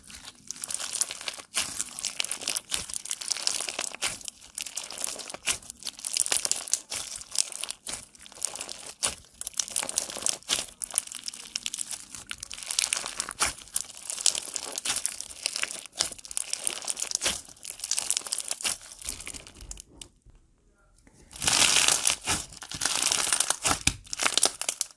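Clear slime packed with small colourful beads being squeezed and pressed by hand, giving a dense, continuous crackling and popping. The crackling stops for about a second near the end, then returns louder.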